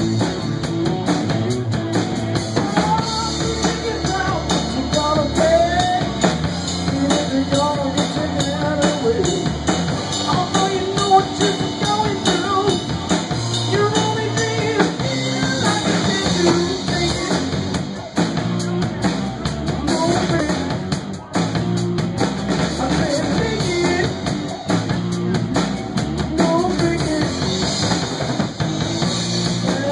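Live rock band playing a song, with drum kit and guitar to the fore and some singing.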